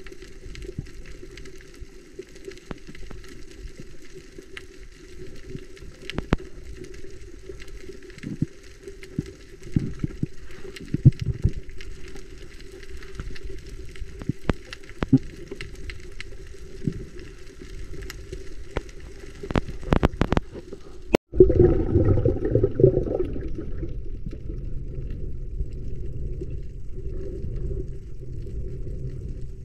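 Underwater reef sound heard through a diving camera: scattered sharp clicks and crackles over a steady low hum. About 21 seconds in the sound drops out for an instant, and a louder low rumble follows.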